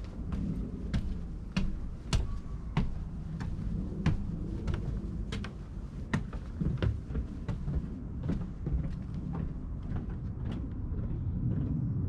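Footsteps on wooden stairs and decking: a sharp wooden knock with each step, about one and a half a second, over a steady low rumble.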